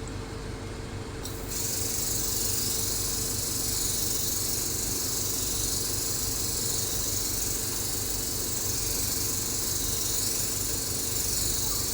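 Hydrodermabrasion machine's spray mist gun spraying water mist, a steady high hiss that starts about a second and a half in, over a steady low machine hum.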